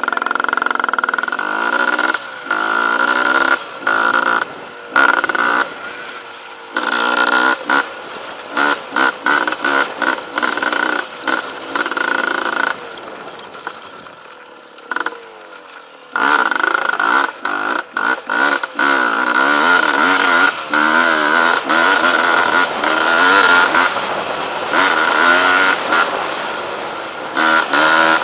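Sport ATV engine revving up and down as the quad is ridden over rough dirt. The throttle is opened and closed again and again, so the engine note keeps climbing and falling and cutting back.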